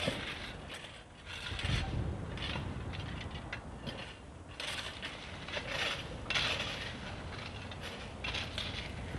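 Railway noise from trains in the station: irregular metallic squeaks and rattles over a low rumble that swells about a second and a half in.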